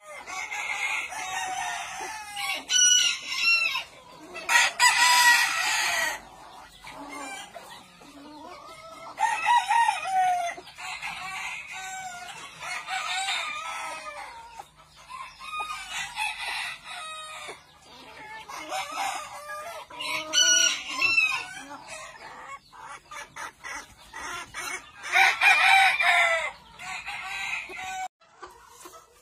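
Rosecomb bantam chickens: roosters crowing several times, each crow lasting a second or two, with hens clucking between the crows.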